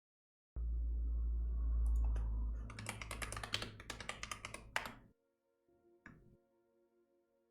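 Computer keyboard typing: a quick run of keystrokes, several a second, over a low steady hum, stopping suddenly about five seconds in, followed by one more single keystroke.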